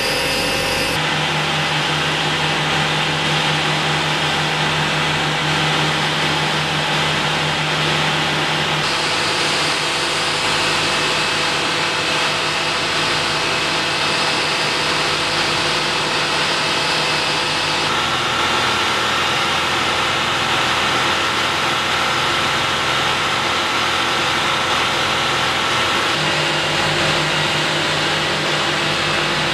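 Olive-oil mill centrifuge machinery running steadily while separating avocado oil: a loud, continuous machine whir whose pitch and mix shift suddenly a few times.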